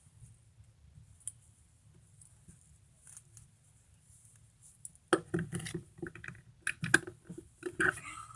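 Clicking and scraping of a fidget spinner being worked by hand as a part of its rusted bearing is pushed back into place: a few faint ticks, then a quick run of sharp clicks about five seconds in.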